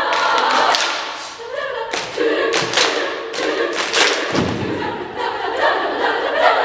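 Women's choir singing, broken by sharp hand claps at irregular times and a couple of low thumps about halfway through, body percussion played by the singers as part of the piece.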